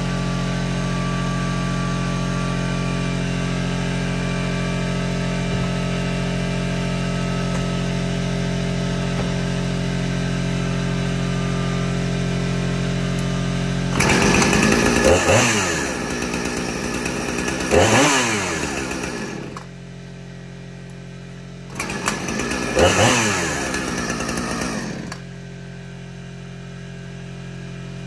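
Husqvarna 455 Rancher two-stroke chainsaw idling steadily, then revved twice and shut off about halfway through. It runs again a couple of seconds later, revs once more and cuts out, leaving a low electrical hum.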